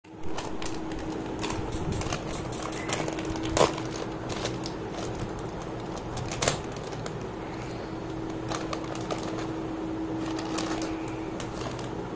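A Kurkure plastic snack packet being handled and torn open, crinkling with many small sharp crackles and two louder snaps, about three and a half and six and a half seconds in. A faint steady hum runs underneath.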